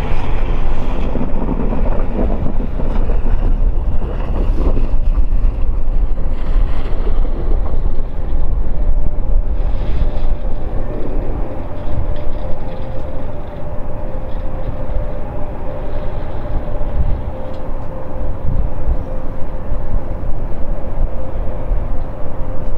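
Airbus A400M's four Europrop TP400-D6 turboprop engines running at taxi power, a steady loud propeller drone with a steady hum that grows clearer about halfway through. Wind buffets the microphone.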